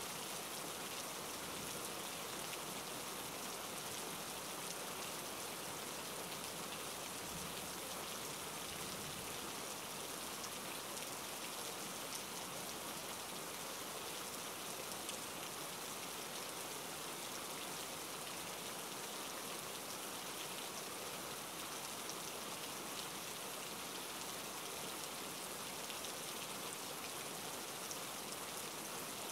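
Steady rain hiss, even and unbroken, with a fine patter of drops.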